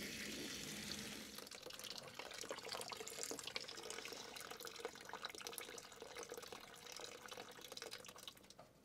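Hot water running faintly from a water heater tank's drain valve into a partly filled plastic basin, trickling and splashing, then fading out near the end.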